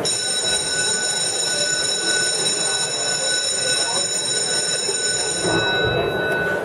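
One long, steady, high whistle blast with several overtones, held for about six seconds before it stops, over the murmur of the audience in the hall.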